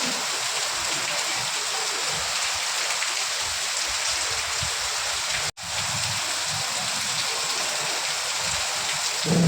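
Steady rain, an even hiss throughout, that cuts out for an instant a little past halfway.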